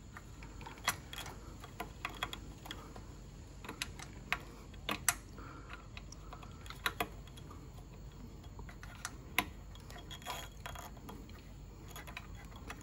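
Scattered, uneven small metallic clicks and taps as small bearings and fittings are worked loose by hand from the hub of a Swardman reel mower's rear drive pulley. A few sharper clicks stand out about five and nine seconds in.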